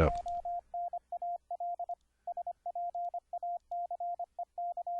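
Morse code (CW) received over the internet and regenerated as a clean sine-wave sidetone, keyed on and off at a single steady pitch in quick dits and dahs, with a short pause about two seconds in.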